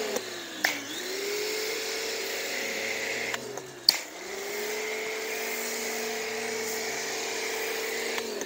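Pressure washer running with a steady motor whine under the hiss of spray from a foam nozzle. Twice the whine sags in pitch as the trigger is let go, near the start and about halfway, then climbs back up as spraying resumes. There is a sharp click about four seconds in.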